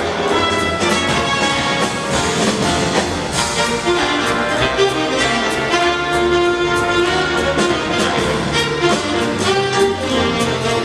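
A live big band playing: trumpets and trombones holding chords over a steady drum-kit beat with cymbal strokes.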